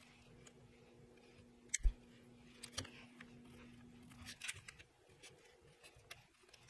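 Light ticks and scrapes of a pencil marking a maple board against a tape measure's blade, with a sharper knock about two seconds in, over a faint steady hum.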